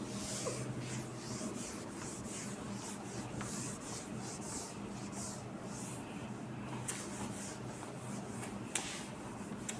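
Whiteboard duster rubbing across a whiteboard in repeated swishing strokes as the board is wiped clean, over a steady low hum. A sharp tap sounds near the end.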